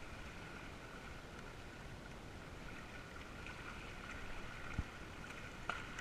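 Water rushing and splashing along the hull and outrigger of a Hobie sailing kayak trimaran under sail, with a single low thump near the end followed by a short click.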